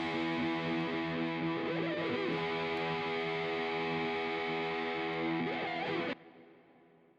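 Music with a distorted electric guitar holding chords, stopping abruptly about six seconds in and leaving a short fading tail.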